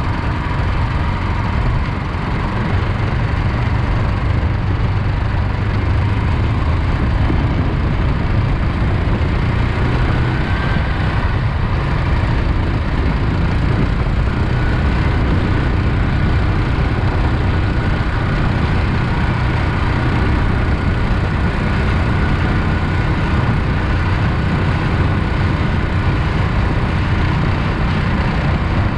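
Predator 420cc single-cylinder engine on an SPS Swamp Runner longtail mud motor, running steadily and loudly.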